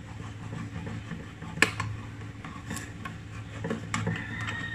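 Kitchen knife being worked into the lid of a metal food can to cut it open, with sharp metallic clicks and scrapes, the loudest about a second and a half in. A low steady hum runs underneath.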